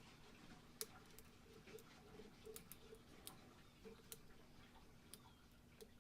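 Faint, irregular clicks of a lock pick working the pins of a Yale mortise lock cylinder under tension, about a dozen light ticks spread over the seconds, with a faint steady hum beneath.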